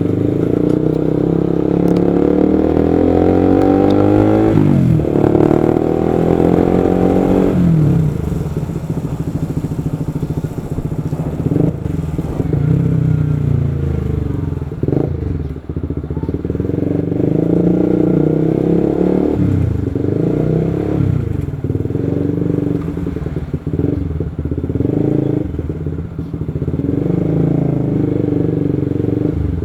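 Motorcycle engine running under way. Its revs climb and fall back twice in the first eight seconds, then it runs more steadily with brief dips.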